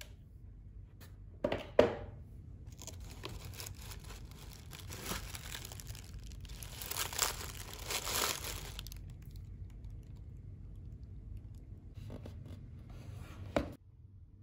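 Tissue paper rustling and crinkling in a shoebox as a pair of sneakers is handled, loudest a little past halfway. A couple of sharp knocks come about two seconds in and another near the end.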